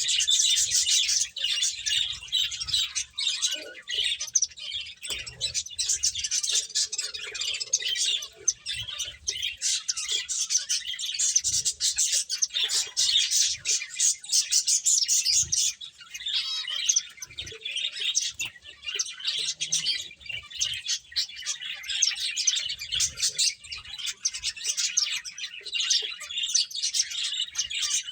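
A group of pet finches chirping continuously, many quick overlapping high-pitched chirps.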